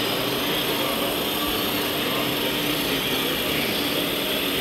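Hydraulic pump of a radio-controlled Liebherr 960 excavator model whining steadily while the boom and bucket work, over the steady background noise of a large hall.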